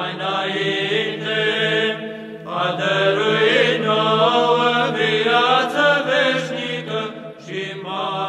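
Background music: a monastic choir chanting Orthodox liturgical chant, a slow melody held over a steady low drone, in two phrases with a short breath between them.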